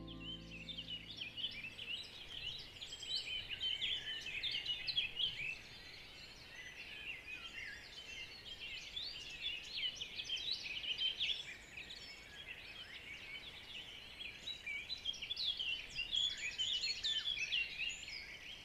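Many small songbirds singing at once: a dense, overlapping stream of quick high chirps and trills, with no single bird standing out.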